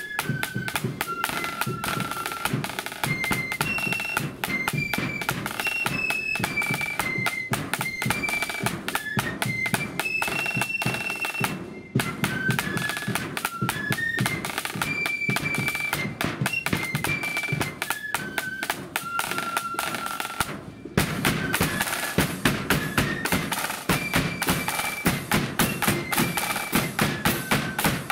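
Marching flute band playing a tune: flutes carry a stepping melody over rapid side drums, a bass drum and cymbals. The music breaks off briefly twice, and the drumming is louder after the second break.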